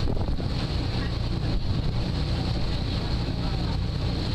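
Passenger ferry underway: a steady low engine rumble mixed with the rush of water, with wind on the microphone.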